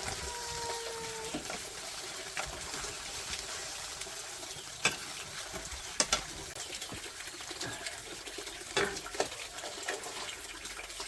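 Running water, as from a tap or a pour, with a few sharp knocks or clinks, the loudest about six seconds in.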